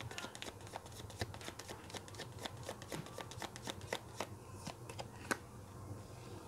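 Oracle card deck being shuffled by hand: a fast run of soft card clicks that thins out about four seconds in, with one sharper click a little past five seconds.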